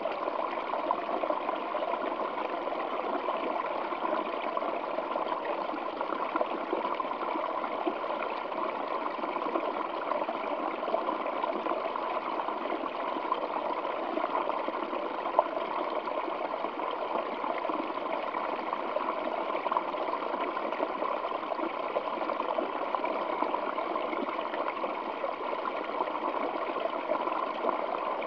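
Waterfall flowing over rocks: a steady, unbroken rush of falling water.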